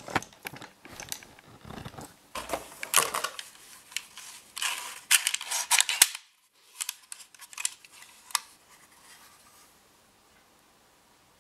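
Handling a plastic four-bay battery charger and its cardboard box: rustling, light knocks and plastic clicks. The sharpest click comes about six seconds in, with the spring-loaded battery contact sliders being pushed and let go, and a few softer clicks follow.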